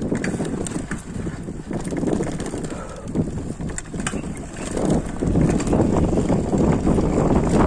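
Wind buffeting the microphone as a mountain bike rolls along a dry dirt trail, with tyre noise on the dirt and scattered clicks and rattles from the bike over bumps. It gets louder about five seconds in.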